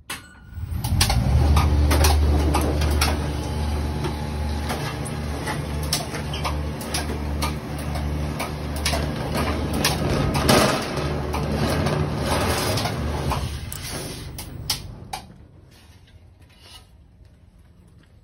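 Standing seam roll-forming machine running as a metal roof panel feeds through its rollers: a steady low hum with metallic rattling and clicking. It starts about half a second in, runs for about thirteen seconds, then winds down to a few faint clicks.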